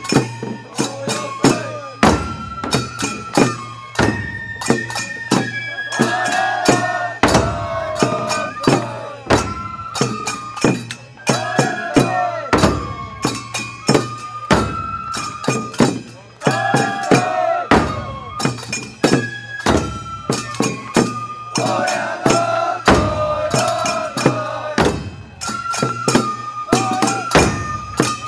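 Matsuri hayashi: a festival flute playing a held, stepping melody over many quick taiko drum strokes.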